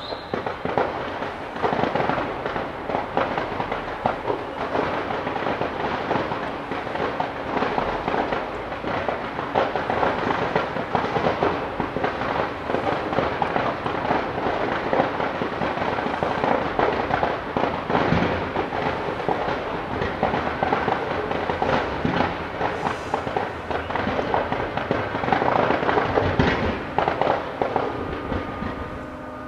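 Fireworks bursting from a tower display: a dense, continuous crackle and popping of many small bursts in quick succession, with louder cracks here and there.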